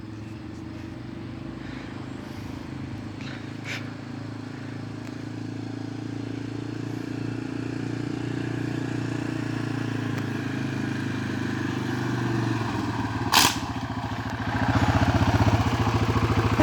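Four-wheeler (ATV) engine running steadily and growing gradually louder as it comes closer. About 13 seconds in there is a single sharp crack, after which the engine is louder with a quick pulsing beat.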